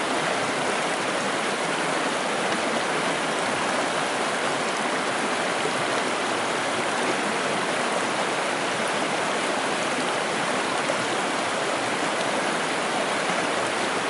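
Stream flowing over rocks: a steady, even rush of water.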